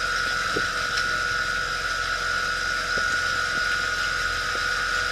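Pontoon boat's motor running steadily while the boat cruises, a constant high whine over an even hiss.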